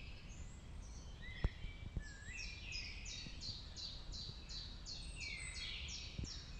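Dawn chorus of woodland songbirds, several singing at once; from about two seconds in one bird repeats a short falling note about three times a second. A faint low rumble lies beneath.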